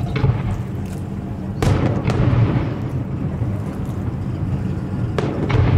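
Fireworks shells bursting: a sharp boom about a second and a half in, followed by a rolling echo, and another boom near the end. A steady low rumble runs underneath.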